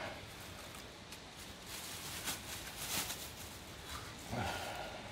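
Thin plastic bag crinkling and rustling as it is handled and pulled off a toy locomotive, busiest a couple of seconds in. A brief low voice sound comes near the end.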